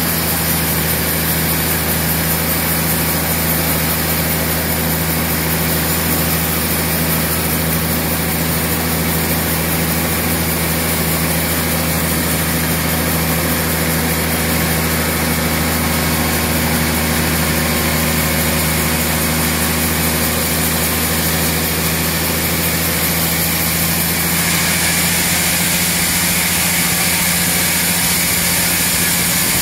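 Large industrial band sawmill running steadily, its blade cutting lengthwise through a big dried tamarind log, with a constant low motor hum under the sawing noise. The sawing turns brighter and a little louder near the end.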